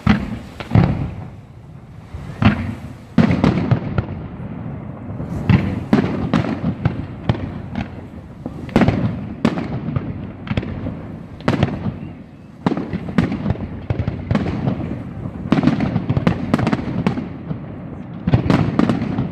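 Fireworks display finale: aerial shells bursting in rapid succession, sharp bangs coming several a second over a continuous rumble.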